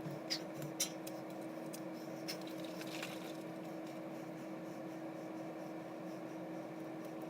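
A steady, fairly quiet hum with a few light clicks and knocks in the first three seconds.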